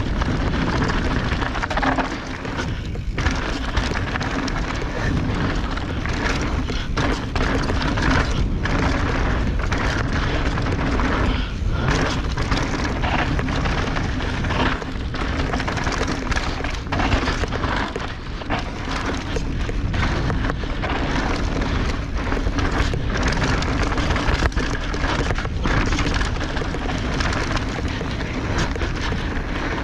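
29er mountain bike running fast down a dirt singletrack: a steady rush of wind and tyre noise, broken by frequent knocks and rattles as the bike goes over bumps.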